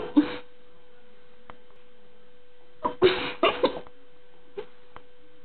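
A person's voice in short bursts: two at the start and a quick run of short throaty sounds about three seconds in, over a steady hum.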